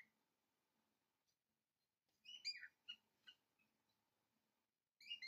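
A small bird chirping in short clusters of quick, high chirps that fall in pitch: one cluster about two and a half seconds in and another starting near the end.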